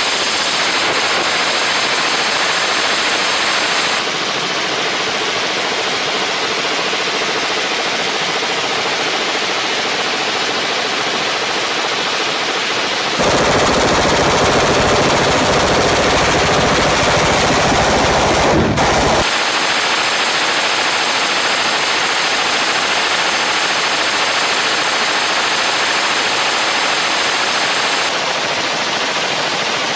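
Suppressed 5.56 mm M249 light machine gun firing sustained full-auto bursts, the suppressor glowing red-hot and breaking apart under the continuous fire. The shots run together into a dense, unbroken stream that changes abruptly several times and is loudest for about six seconds in the middle.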